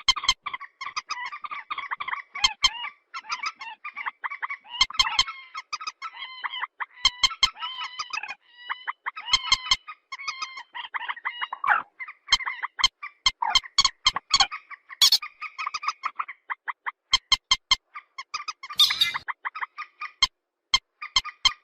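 Purple swamphen calling without pause: fast runs of sharp clicking notes mixed with short, pitched cackling calls.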